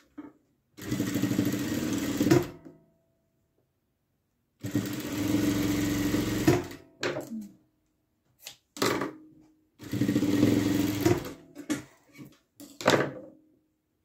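Juita industrial sewing machine stitching patchwork strips in three short runs of about two seconds each. Each run ends with a sharp click, and a few more clicks fall between the runs.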